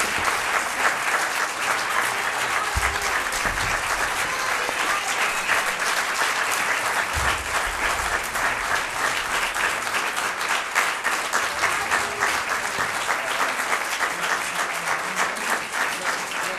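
Audience applauding steadily, the dense crackle of many hands clapping.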